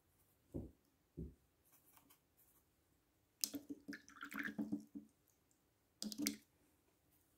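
A paintbrush rinsed in a water pot: two soft thumps about half a second apart, then splashy swishing with clicks and clinks against the pot for about a second and a half, and a shorter burst near the end.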